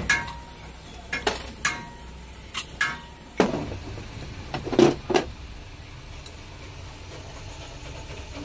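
Metal tools and engine parts clinking and knocking as they are handled: about ten sharp taps over the first five seconds or so, the loudest a little under five seconds in, then only a low steady background.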